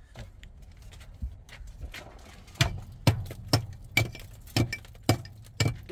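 Hammer blows struck at a steady pace of about two a second, starting about two and a half seconds in, some with a short metallic ring.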